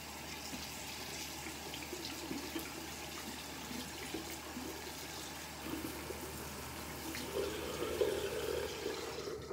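Bathroom sink tap running, the water splashing steadily into the basin, then shut off at the very end.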